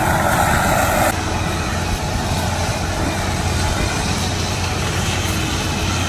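Gleaner F2 combine harvester running as it harvests corn, a steady engine drone with a low hum. It dips slightly about a second in.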